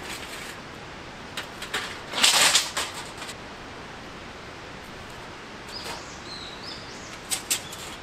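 A few clicks and a short, loud burst of rustling handling noise about two seconds in, with faint bird chirps around six seconds in, over a steady background hiss.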